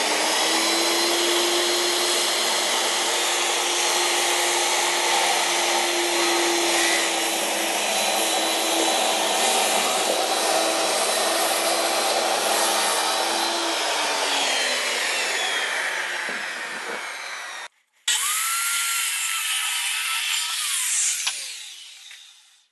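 Bosch circular saw running and crosscutting the ends of red cedar boards, its motor whine steady and then winding down about 14 seconds in. After a short break it runs again and winds down, fading near the end.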